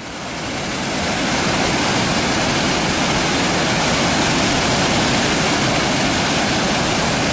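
Waterfall's falling water: a loud, steady rush that fades in over about the first second and then holds even.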